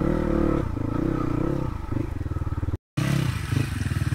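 Crossfire RM250 dirt bike engine revving up and down with the throttle, then running at low revs with an even pulsing beat from about two seconds in. The sound cuts out for an instant just before three seconds.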